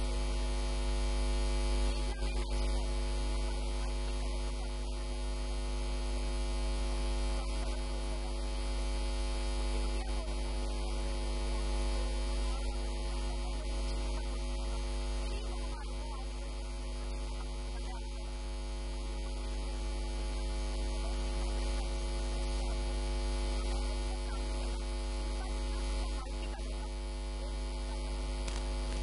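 Steady electrical mains hum, a low buzz with a stack of even overtones, unchanging throughout.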